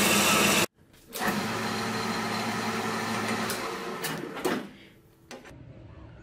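Metal lathe running steadily, spinning a metal workpiece, heard in short clips joined by abrupt cuts. About five seconds in it gives way to a quieter steady background noise.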